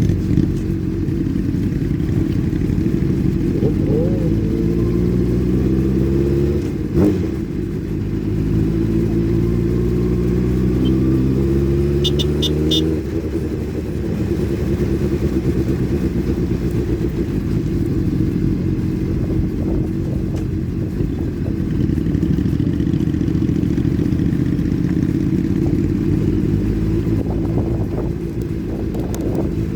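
Motorcycle engines running in a convoy, with engine notes rising in pitch through the gears for several seconds before settling into a steady run. A sharp click comes about seven seconds in, and four short high beeps follow about twelve seconds in.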